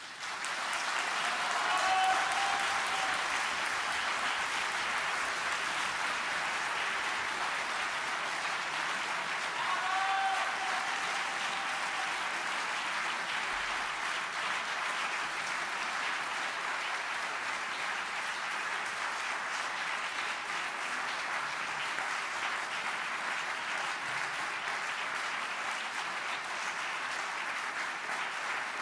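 Audience applauding steadily in the house as the aria ends, with a brief shouted call about two seconds in and another about ten seconds in.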